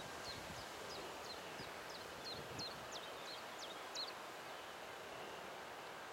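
A small bird calling a short, high, falling note over and over, about three times a second, stopping about four seconds in, over a steady faint outdoor hiss.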